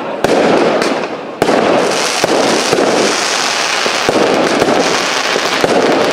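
Fireworks from a cake battery bursting overhead: two sharp bangs about a quarter second and a second and a half in, then an unbroken run of bursts and crackling stars.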